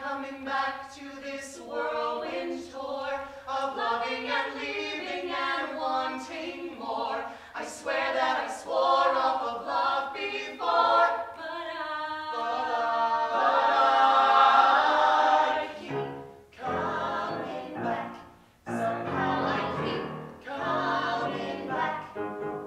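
A stage cast of men and women singing together in harmony. They swell to a long, loud held chord about two-thirds of the way through, break off briefly, and then sing on.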